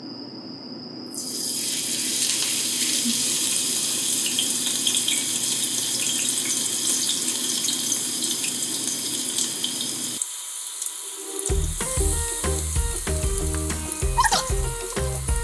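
Vegetable kakiage batter frying in 170 °C oil in a frying pan: a loud, steady sizzling hiss starts suddenly about a second in as the first batter goes into the hot oil. Background music with a beat comes in near the end.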